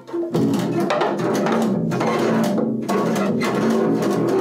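Double bass bowed hard, a dense, rough stream of low notes with many sharp scratchy attacks, starting about a third of a second in.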